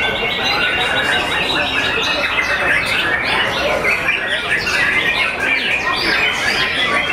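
Many white-rumped shamas singing at once: a dense, unbroken chorus of overlapping whistles and quick phrases.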